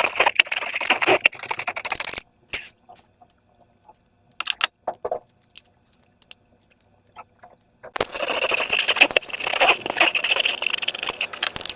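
Crackling, rustling handling noise from slime and balloon-making materials, in two dense stretches with scattered sharp clicks and ticks in a quieter gap between them.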